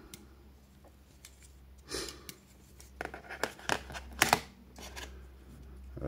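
Stainless steel Daicamping and Leatherman multitools being handled: a scattered series of light metal clicks and clacks, the sharpest a little past the middle.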